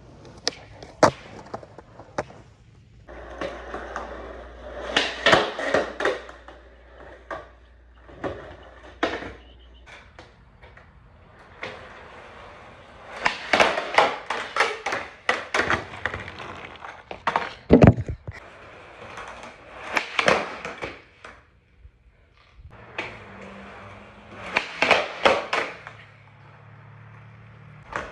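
Skateboard tricks on concrete: the wheels rolling, sharp pops of the tail, and the deck clacking and slapping down on landings, in several separate bursts. These are kickflips and pop shove-its, with the garage giving the hits a small-room ring.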